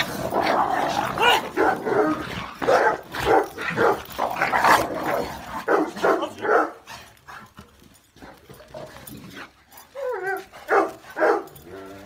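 Dogs barking and yapping in a rough tussle, the barks coming thick and fast, then thinning out after about seven seconds, with a few high, wavering whines near the end.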